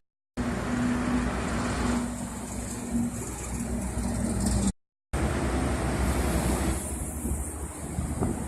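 Highway traffic noise from trucks and cars passing: steady engine and tyre noise with a low hum, broken twice by brief silent gaps.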